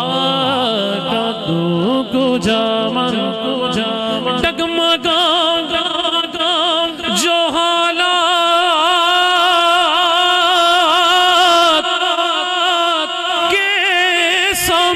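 A man's solo voice singing a naat into a microphone, drawing out melismatic phrases. From about five seconds in he holds long notes with a wavering vibrato.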